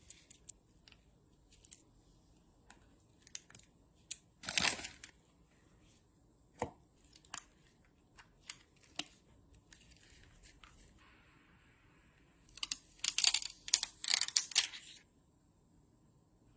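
Hand work on a smartphone under repair: scattered light clicks and taps, a brief tearing sound about four and a half seconds in, and a run of crackling, tearing sounds near the end.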